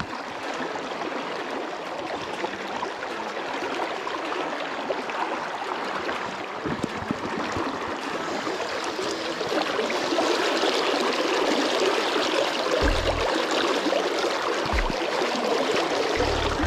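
Shallow creek riffle flowing steadily, growing louder about two thirds of the way through, with a few dull low thumps.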